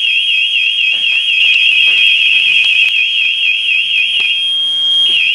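Firefighter's PASS distress alarm sounding a loud, fast high-pitched warble alongside a steady high tone. It is the signal of a downed, motionless firefighter. The warble drops out briefly near the end and resumes, with a few faint knocks of gear underneath.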